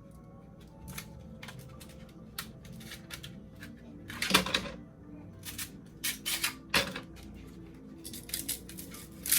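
Ice cubes clinking and clattering as they are dropped into a plastic tumbler, in irregular bursts with the loudest clatter about halfway through. Background music plays under it.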